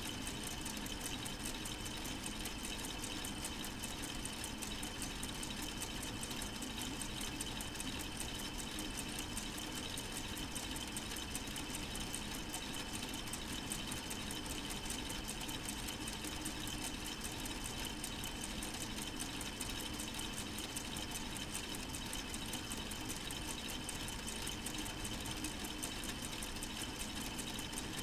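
K'nex model four-cylinder engine, solar powered, running steadily: its plastic gears and linkages turn with a continuous fast clicking whirr.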